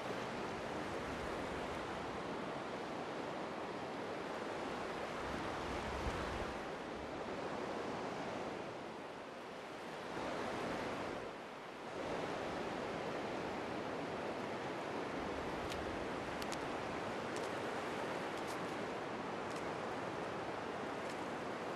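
Sea surf washing steadily on a shallow beach, a continuous rush of waves with some wind, dipping briefly about ten and eleven seconds in. A few faint high ticks in the second half.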